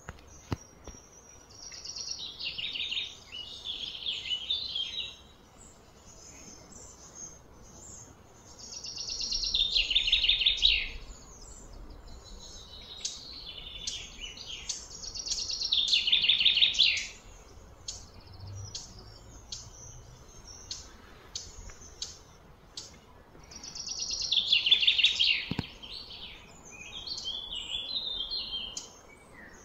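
A songbird singing loud, high trilled phrases about two seconds long, each falling in pitch, four times, with short chirps in between.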